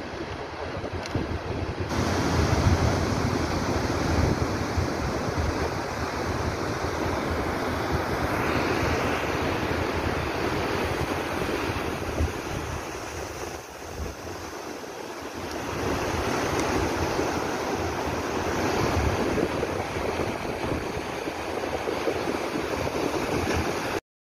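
Rough storm surf breaking and washing up the beach, with wind buffeting the microphone. The sound holds steady, dips briefly past the middle, and cuts off suddenly at the very end.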